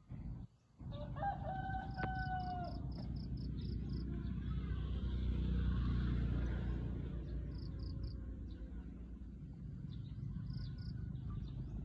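A rooster crows once, a long call that rises and then holds, starting about a second in. Short runs of rapid, high insect-like chirps come and go, and a low rushing noise swells and fades through the middle.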